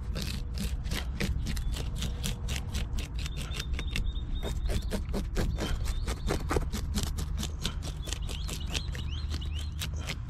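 Lane snapper being scaled on a plastic cooler lid: quick repeated scraping strokes, about three or four a second, as the scales are scraped off against the grain.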